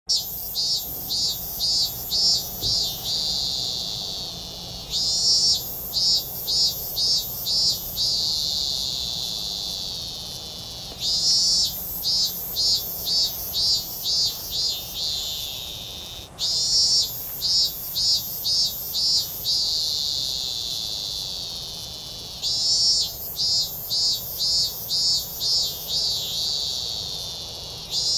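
A cicada singing loudly in repeated phrases about every five to six seconds. Each phrase is a swell, then a run of about six quick pulsing notes, then a long high drone that fades away.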